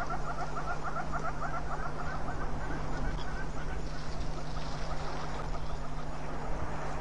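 A bird calling a rapid run of short, repeated notes, strongest at first and fading away over the next few seconds, over a steady low hum and outdoor background hiss.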